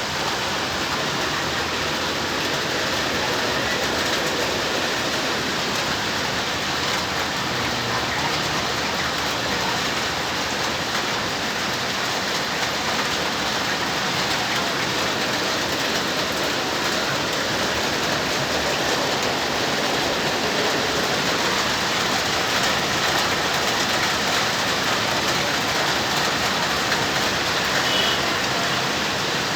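Steady rain falling on a surface, a dense even patter at a constant level.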